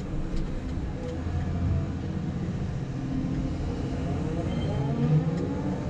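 Cat 330 Next Gen excavator's diesel engine and hydraulics working under load, heard from inside the cab, as the bucket scoops and lifts a load of dirt. A steady low drone, with a whine that rises and falls in pitch in the second half as the boom lifts.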